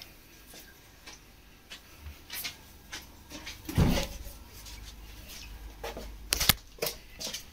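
Scattered knocks and clicks of objects being handled, with a low thump a little under four seconds in and a quick cluster of sharp clicks a little over six seconds in.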